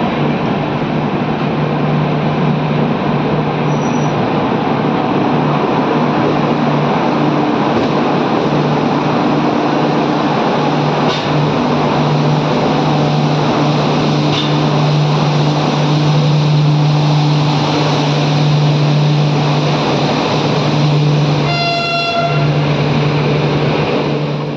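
Shatabdi Express train running: a steady, loud rumble with a low, steady hum throughout.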